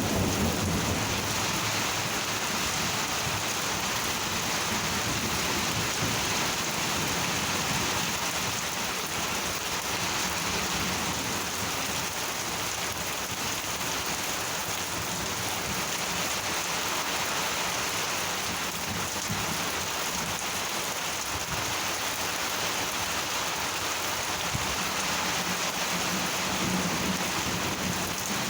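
Steady, heavy monsoon rain, with low rumbles of thunder at the start and again near the end.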